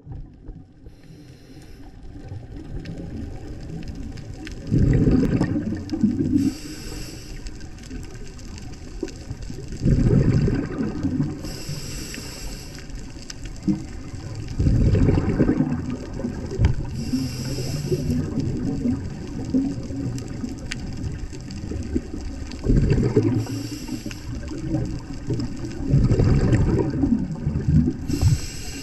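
Scuba diver breathing through a regulator underwater: a short hiss on each inhale, followed a few seconds later by a loud burst of exhaust bubbles on the exhale, about every five to six seconds.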